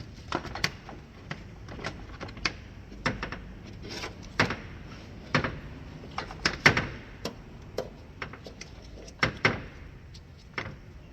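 Irregular knocks and clicks as a radiator cooling fan assembly is worked into place against the radiator, its mounting tabs being lined up.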